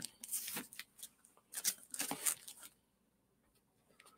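Comic books in plastic bags rustling and crinkling as they are handled, in two short spells of rustling.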